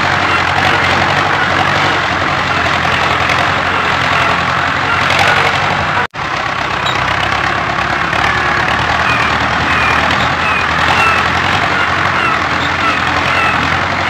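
Tractor engine sound effect running steadily, cutting out for an instant about six seconds in.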